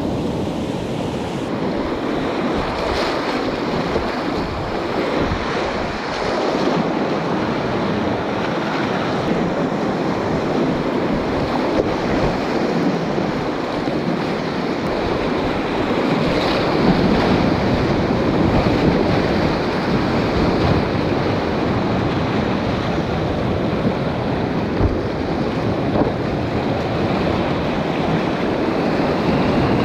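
Whitewater rapids rushing and splashing around a kayak, with waves breaking over the bow and onto the camera: a loud, steady rush of water throughout.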